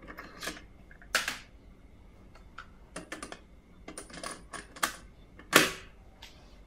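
Plastic and metal clicks and clacks from a Nakamichi 600 II cassette deck being handled: a cassette is loaded into the open well and the cassette door is pushed shut, the loudest clack about five and a half seconds in.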